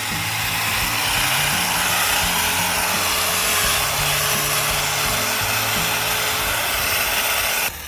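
A loud, steady rushing hiss of air, like a compressed-air blower or spray, that cuts off suddenly near the end, over background music with a low bass line.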